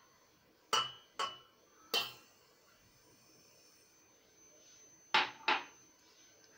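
A drinking glass clinking against a stainless steel pot as granulated sugar is emptied into it: three sharp clinks in the first two seconds and two more about five seconds in, with a faint hiss of sugar pouring just before the last pair.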